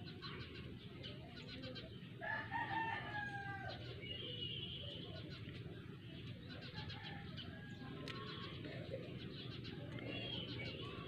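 A rooster crowing once, about two seconds in, a slightly falling call a little over a second long, with fainter high bird chirps later.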